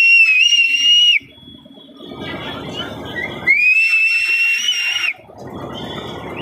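High-pitched squeals on a spinning Ferris wheel, each held for over a second: one at the start and another about three and a half seconds in. Between them comes a rushing noise.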